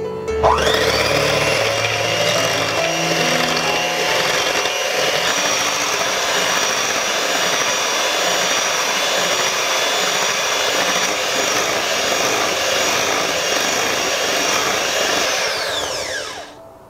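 Electric hand mixer whipping cream in a glass bowl, beating it toward firm peaks. The motor spins up with a rising whine about half a second in, runs steadily as the beaters whir through the cream, then winds down with a falling whine near the end.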